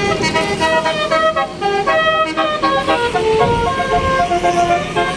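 Indonesian tour bus's 'basuri' telolet horn, a multi-trumpet air horn playing a quick melody of short notes that change pitch in steps.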